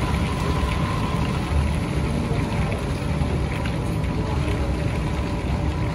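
Steady running noise of an SMRT C151 train heard inside the passenger cabin as it travels along the track: a low rumble with a faint steady high whine.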